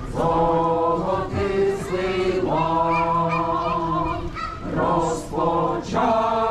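Small group of men and women singing unaccompanied in Ukrainian, a slow song with long held notes.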